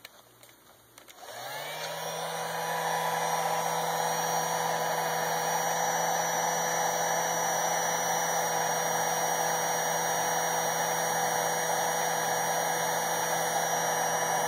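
A small electric blower motor starts about a second in, rising in pitch as it comes up to speed, then runs steadily with an airy rush.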